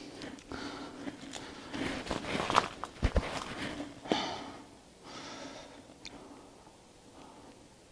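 Footsteps and the rustle and crackle of dry weeds and twigs as someone pushes through undergrowth, with a few close sniffs and breaths; the crackling is densest in the middle, and one louder breath follows about four seconds in.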